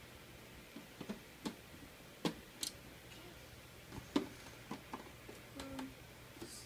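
Irregular small clicks and taps of a screwdriver working the screws out of a DVD/VCR combo's top casing.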